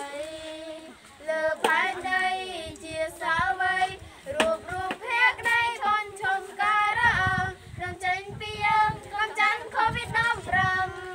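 Two children, a boy and a girl, singing a Khmer song together unaccompanied, with held and gliding notes.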